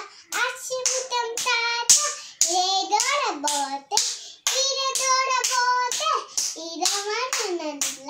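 A young girl singing a children's rhyme in a high voice, holding several long notes between short sung phrases.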